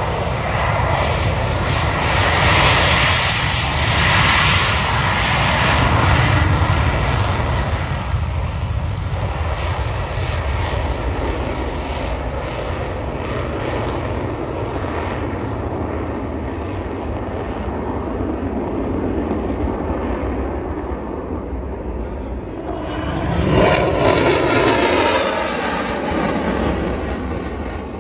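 Fighter jets taking off: a loud, continuous jet-engine roar that swells over the first few seconds, eases a little, then surges again near the end as a jet passes, with its pitch sweeping.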